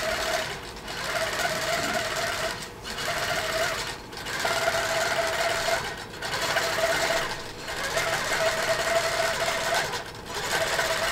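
Handi Quilter Amara longarm quilting machine stitching under Pro-Stitcher computer control: a steady whirring run with a held hum, easing off briefly every second or two as the stitch path changes.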